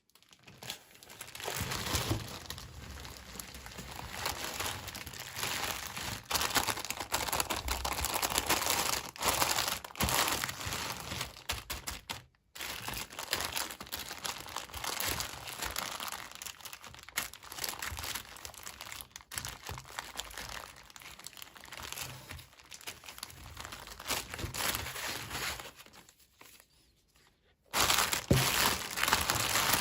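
Toy packaging crinkling and rustling as it is handled and opened, with many small clicks and taps. The crinkling stops briefly about halfway through and again for over a second near the end.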